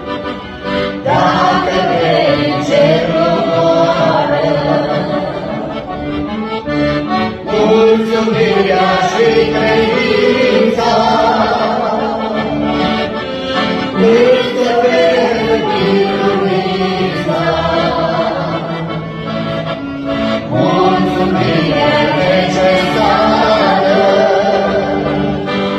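A religious song of praise sung over sustained instrumental chords, the melody rising and falling in long phrases.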